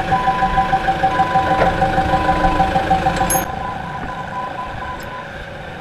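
Cat D7F dozer's diesel engine running with an even pulsing beat, about five pulses a second. About three and a half seconds in the sound drops sharply and fades away.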